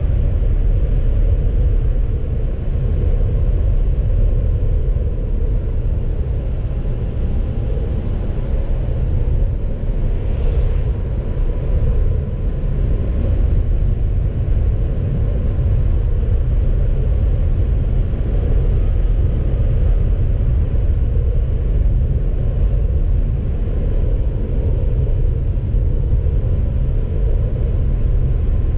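Steady low rumble of a car on the move: tyre, road and engine noise, with no clear changes.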